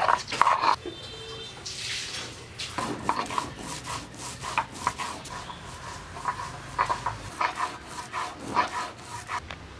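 Stone roller grinding wet cumin seeds and cardamom pods into a paste on a flat grinding stone (sil-nora): quick, repeated scraping and knocking strokes as the stone is rocked and rubbed back and forth, several a second.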